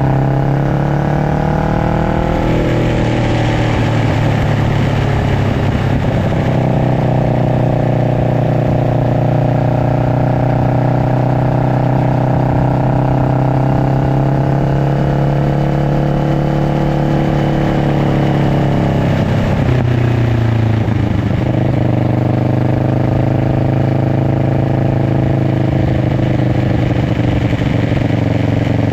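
Kawasaki Ninja 650's parallel-twin engine running through an aftermarket slip-on exhaust. The engine speed holds steady for long stretches, easing off and picking up again about six seconds in and about twenty seconds in.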